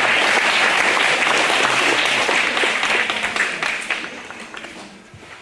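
An audience of schoolchildren applauding, a dense clapping that holds steady for about three seconds and then dies away.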